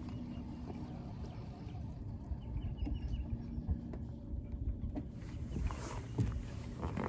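Fishing boat on the water: a steady low rumble with a faint steady hum, and a short run of faint high chirps about two and a half seconds in.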